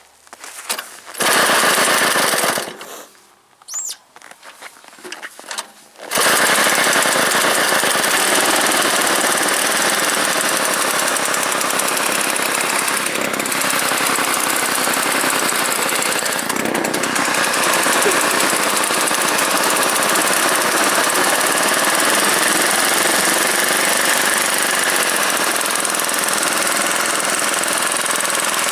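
Druzhba chainsaw's single-cylinder two-stroke engine on a homemade snowblower, with a freshly swapped carburettor: a short loud burst about a second in, then the engine catches about six seconds in and runs loud and steady.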